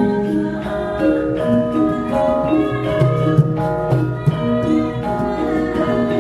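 Javanese gamelan playing: metallophones ringing out a steady, stepwise melody of sustained notes, with a couple of sharp knocks in the middle.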